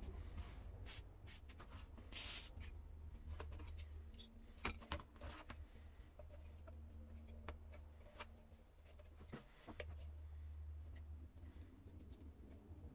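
Faint clicks, taps and scrapes of a rusty steel bicycle lamp being handled and opened by hand, over a low steady hum.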